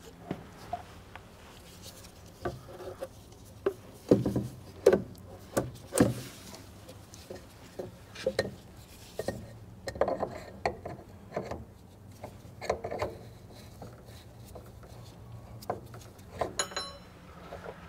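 Hands fitting a filter housing back into a compact track loader's engine bay: scattered knocks, clicks and rubbing as the housing is handled and turned, loudest about four to six seconds in, with a brief high squeak near the end.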